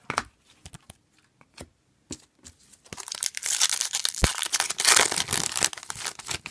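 Foil wrapper of a hockey-card pack being torn open and crinkled, loud and crackly from about three seconds in, after a few light clicks. One sharp tap stands out about a second into the tearing.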